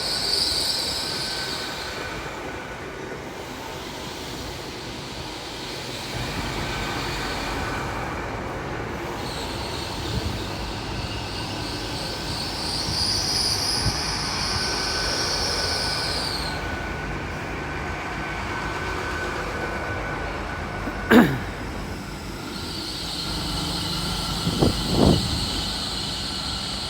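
A passenger train arriving at a station over a steady low rumble, its brakes squealing high-pitched in three long stretches. A short loud falling sound cuts through about 21 seconds in.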